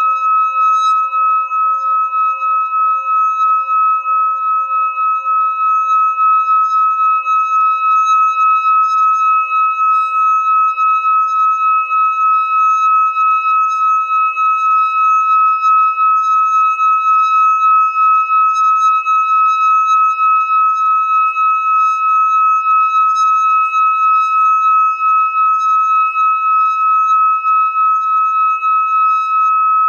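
Hand-held metal singing bowl sung by rubbing a stick around its rim: one steady, high ringing tone with a fainter overtone above it, wavering slightly in loudness.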